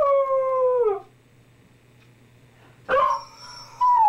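A dog howling. One long howl slides down in pitch and dies away about a second in. A short rising cry follows near three seconds, and a new, higher howl begins just before the end.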